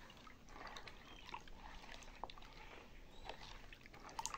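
Faint swishing of diluted liquid detergent being stirred with a plastic spoon in a plastic basin, with scattered light clicks.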